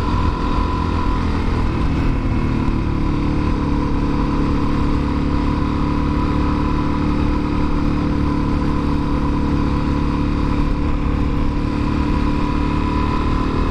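Suzuki DR-Z400SM's single-cylinder four-stroke engine running steadily while the bike cruises, with heavy wind rumble on the microphone.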